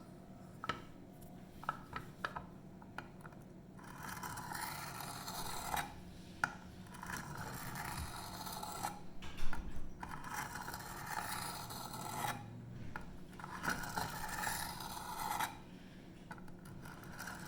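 Steel knife blade drawn over a coarse water stone in a series of long, gritty strokes, each about two seconds, starting about four seconds in. It is the one-sided chisel edge of an Emerson Mini A100 in 154CM steel, being ground from dull on the coarse stone to raise a burr.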